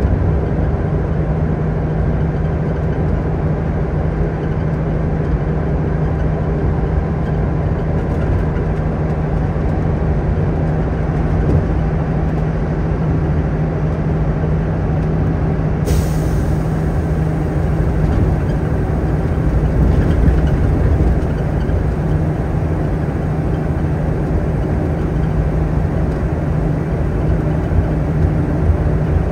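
ECW coach-bodied Leyland Olympian double-decker bus running steadily at motorway speed, heard from on board: a loud, even engine drone with road noise. About halfway through comes a sudden hiss that fades away over a few seconds.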